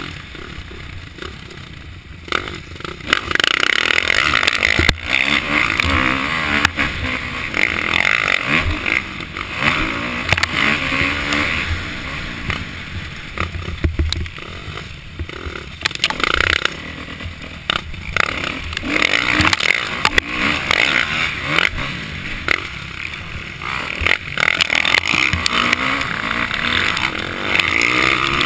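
Kawasaki KX450F single-cylinder four-stroke dirt bike engine, heard from on the bike, revving hard and easing off over and over as the throttle is worked around a motocross track. It runs quieter for the first few seconds, then loud surges follow.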